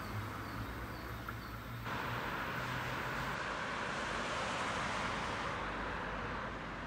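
Vehicle running noise: a low steady hum that fades out about three seconds in, overlapped from about two seconds in by a steady hiss of rolling or passing noise.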